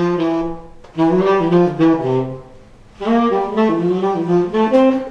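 Tenor saxophone played through a repaired Otto Link hard rubber mouthpiece: three short phrases of quick notes, separated by brief pauses.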